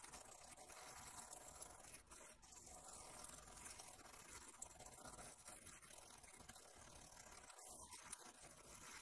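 Faint scrubbing of a small stainless-steel bristle brush over the oxidized contact tracks of a mode select switch, a rotary encoder, wiping off the oxidation.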